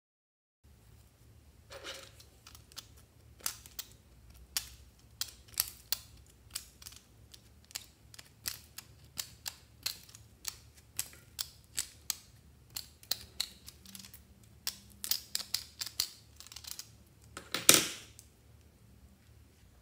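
Hard sunflower-shaped piece and a plastic item handled by hand, giving a string of sharp clicks and taps, roughly two a second. A louder, longer crackle comes near the end.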